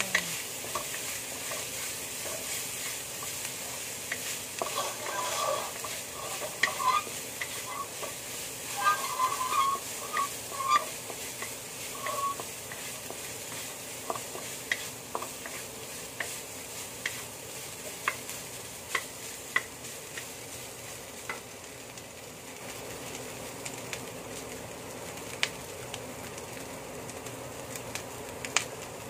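Minced filling sizzling in a hot wok while a wooden spatula stirs it, scraping and tapping against the pan with frequent short clicks over a steady frying hiss.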